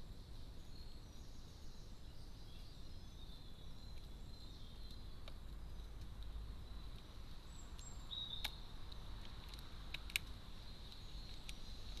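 Carrion crow's beak pecking at food in a feeder dish, giving a few sharp taps in the second half, over a faint outdoor background.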